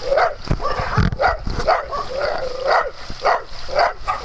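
Dogs barking repeatedly in play, short barks of varying pitch about two or three a second, with a couple of low thuds in the first second.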